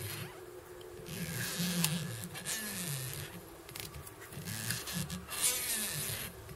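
Holographic mylar tinsel rasping and crinkling in uneven bursts as it is wound turn by turn around a fly's body on the hook, rubbing through the fingers under tension. A faint low wavering hum runs beneath it.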